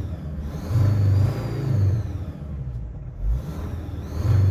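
Mercedes OM612 2.7 CDI five-cylinder turbodiesel in a Sprinter 316 being revved with no load, surging twice, with a thin high whistle that rises and falls with the revs. The whistle comes in from about 2000 rpm and is the fault under investigation, first blamed on the turbocharger.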